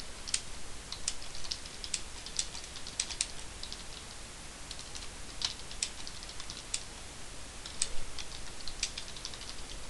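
Typing on a computer keyboard: a run of irregular key clicks with short pauses as a sentence is typed.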